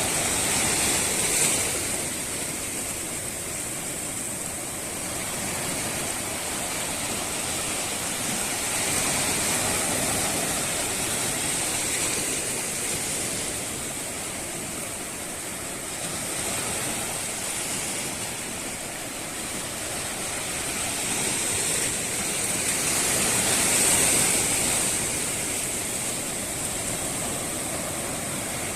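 Steady rushing noise of water that swells and eases slowly every several seconds, with a steady high hiss on top.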